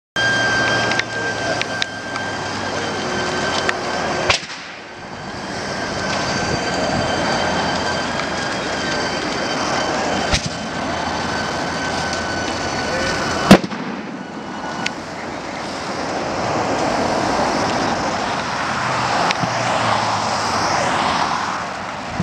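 A car transporter full of new Subaru Foresters burning, a steady rushing roar of the blaze broken by sharp explosions as the cars' tyres and fuel tanks burst: one about 4 seconds in, one about 10 seconds in, the loudest about 13 seconds in, and another at the very end. A faint steady high tone sits over the roar in the first half.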